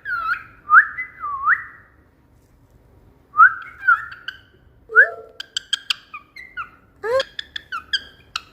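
Pet cockatiel whistling, a string of short rising whistled notes in phrases with a brief pause, and sharp clicks mixed in during the second half.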